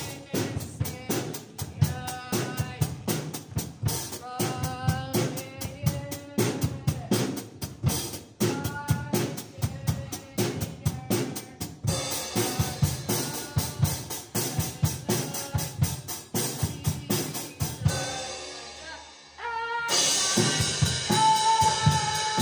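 Drum kit played to a steady rock beat, kick, snare and cymbals, with a melodic backing track along with it. About 18 s in the kick and snare drop out briefly, then the beat comes back fuller with washing cymbals.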